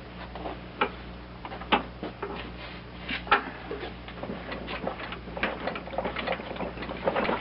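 Irregular light metallic clicks and knocks as a cast-iron bench vise is handled and tested on a workbench, over a steady low hum.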